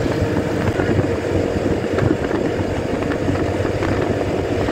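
Motorcycle engine running steadily while being ridden along a road.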